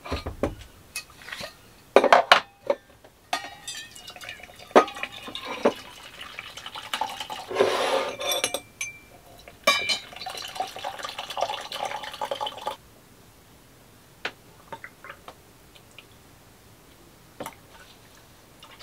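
Clinks of a French press and mugs being set down on a counter, then coffee poured from the insulated French press into a ceramic mug in two pours of a few seconds each, followed by a few light taps.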